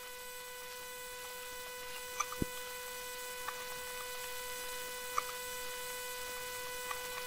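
Steady electrical hum with a high whine, and a few faint computer-keyboard key clicks spaced well apart, about five in all.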